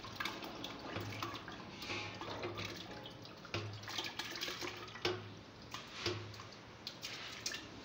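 Soaked dried apricots, dried plums and tamarind with their soaking water being poured from a steel bowl into a steel grinder jar: liquid trickling and dripping, with irregular wet plops and small taps as pieces of fruit drop in.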